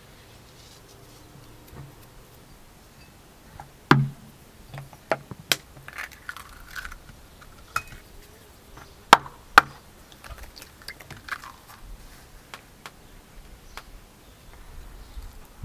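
Sharp knocks and clicks, a loud knock about four seconds in and two sharp cracks half a second apart a little past the middle, with lighter taps between: eggs being cracked on the rim of a plastic mixing bowl and dropped into flour.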